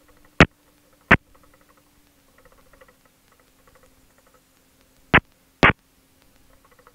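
Quiet cockpit intercom feed with a faint steady hum, broken by four short sharp clicks in two pairs, one pair about half a second in and one about five seconds in.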